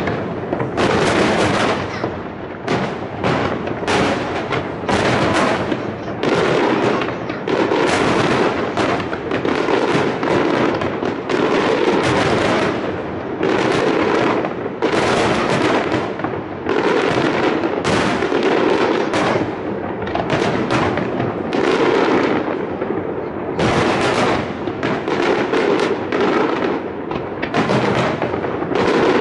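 Aerial fireworks shells bursting in a dense, unbroken barrage of overlapping bangs.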